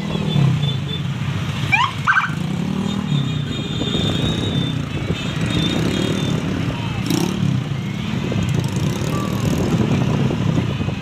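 Road traffic passing: a steady rumble of engines and tyres that swells and fades as vehicles go by. There are two short rising tones about two seconds in.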